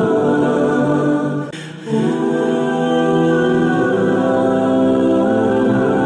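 Background music of long held, choir-like vocal chords that shift every second or so, briefly dropping away about a second and a half in.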